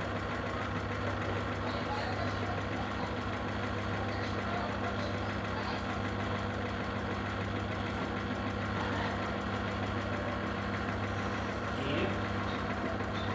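Samsung washing machine running with a steady low hum and a fast, even knocking rattle: the abnormal noise the machine is being repaired for.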